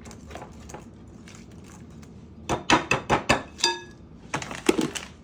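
Kitchen dishes and utensils clattering: a quick run of knocks and clinks about halfway through, one of them ringing briefly, then a few more knocks near the end.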